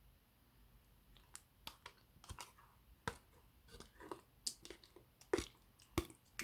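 Clear slime being squeezed and pressed by hand: irregular sticky clicks and pops, starting about a second in and loudest near the end.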